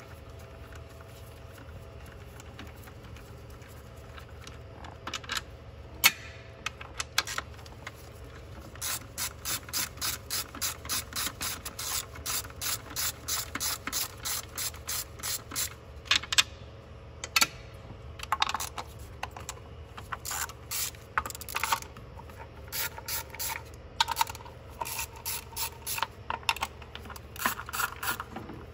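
Socket ratchet with a 10 mm socket clicking as bolts are backed out, in long runs of about two to three clicks a second that stop and start several times. There is a single sharp click about six seconds in.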